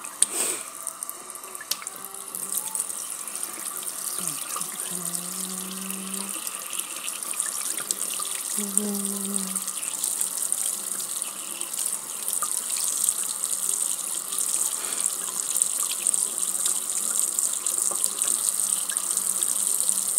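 Tap water running steadily into a stainless steel sink, splashing toward the drain, growing slightly louder through the second half.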